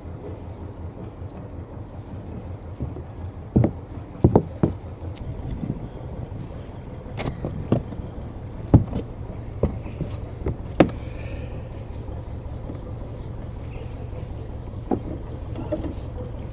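Albin 2D marine engine running steadily with a low, even beat, with scattered short knocks and clatters over it, most of them in the middle of the stretch.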